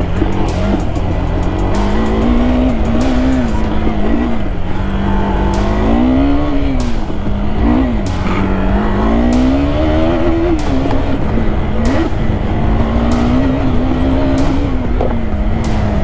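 KTM 390 Adventure's single-cylinder engine running as the motorcycle rides over grass and dirt, its note holding steady and then rising and falling several times as the throttle is opened and closed.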